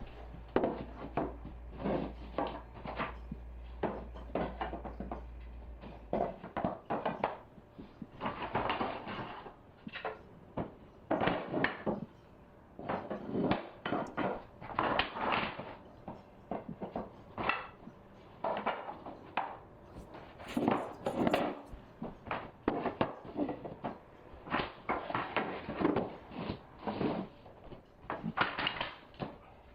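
Hardwood floorboards being laid and knocked tight with a rubber hammer: a long run of irregular wooden knocks and clatters, coming in quick clusters.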